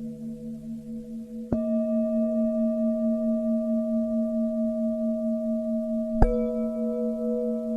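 Tibetan singing bowls ringing with slowly pulsing, wavering tones. Two new strikes, about a second and a half in and again near the end, each set off a fresh sustained ring over the fading ones.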